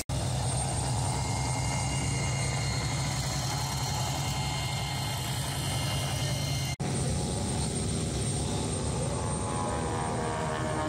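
Propeller aircraft engines droning steadily: a low hum with thin steady whines above it. The sound drops out for an instant about seven seconds in.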